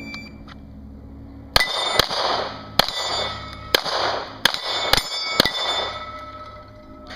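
A shot-timer beep, then a handgun fired about seven times in quick succession at steel plates. Each hit is followed by the clang and ringing of the steel.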